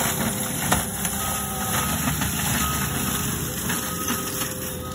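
Forestry mulching machine running steadily while clearing brush. Its backup alarm sounds about four short, single-pitched beeps spaced a little over a second apart, starting about a second in.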